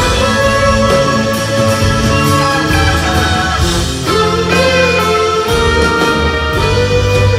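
Live rock band playing a slow instrumental passage: an electric lead guitar holds long, bending notes over strummed acoustic guitar and drums.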